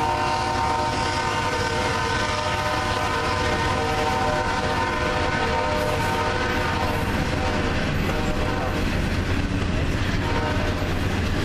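Freight train rolling past, a steady low rumble of the cars on the rails. A locomotive's multi-chime horn sounds a held chord over it, fading out about seven seconds in and returning faintly near the end.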